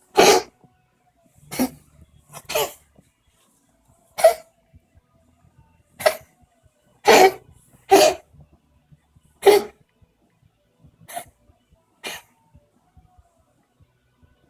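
Siamese cat coughing in a fit of about ten short, harsh coughs at uneven gaps of one to two seconds, the last two fainter; the owner suspects an asthma attack.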